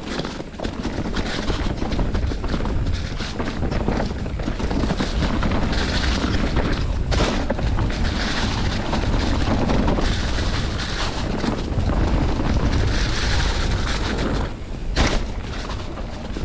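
Enduro mountain bike riding fast down a dry dirt-and-leaf trail: wind buffeting the microphone over steady tyre noise on dirt and dry leaves, with rattles and knocks from the bike over bumps. A sharp knock comes about seven seconds in and a louder one near the end.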